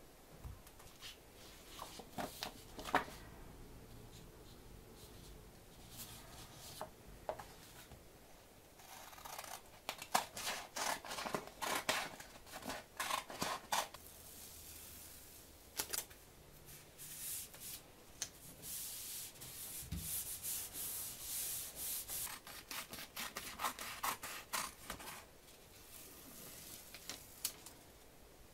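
Paper rustling and rubbing as sheets are handled and paper templates are laid and pressed down onto a thin wooden board, in scattered spells with a few light taps.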